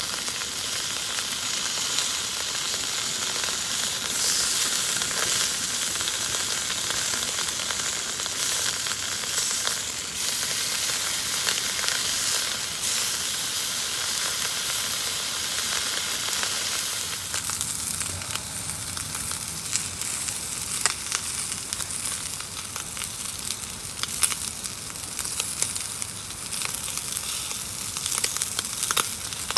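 Food frying in a hot pan, a steady sizzle, with sharper spitting pops becoming more frequent in the second half.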